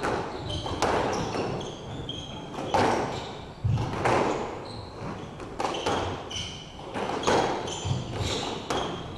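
Squash rally: sharp racket strikes and the ball smacking off the court walls in a quick irregular series, with sneakers squeaking on the hardwood floor between shots.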